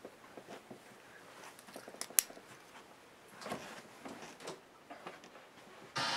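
Small clicks and rustles of handling, with one sharp click about two seconds in. Near the end a loud buzz starts abruptly from the television's speaker as the received amateur-TV signal drops to static.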